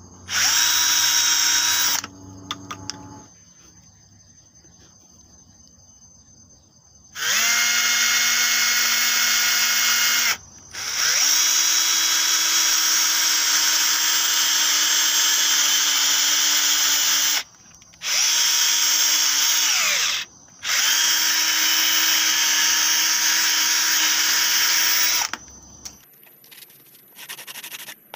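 Cordless drill boring holes into a freshly peeled green-wood branch. It runs in five bursts of a few seconds each, separated by short pauses, and its motor whine rises as it spins up and falls as each run stops.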